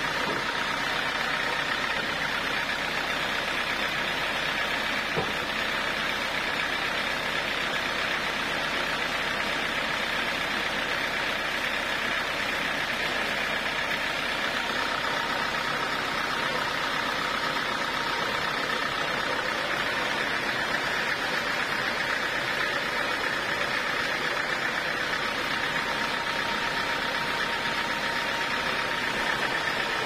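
Band sawmill running steadily while no cut is being made: an even mechanical whirring with a faint steady hum. One light knock about five seconds in.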